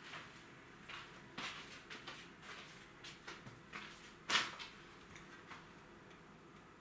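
Scattered light clicks and knocks, with one sharper, louder knock about four and a half seconds in, then only a faint steady background.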